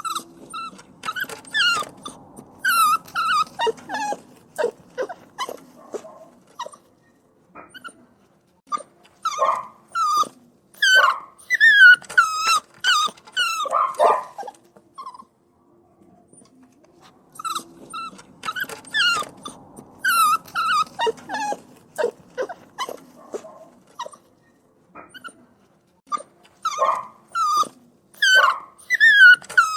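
Puppies crying and whining: quick runs of short, high-pitched whimpers and yelps that bend in pitch, coming in bouts broken by brief pauses.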